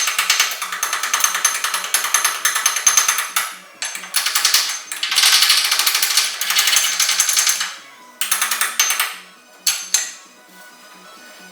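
Stick-welding arc crackling and sputtering in runs of a few seconds, stopping abruptly and starting again as the arc is broken and restruck.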